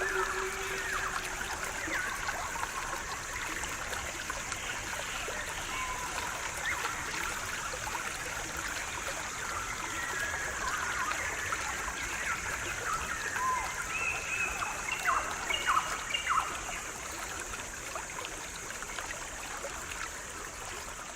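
Stream trickling and flowing steadily, with birds chirping throughout and a flurry of calls about midway. A last held flute note fades out in the first two seconds.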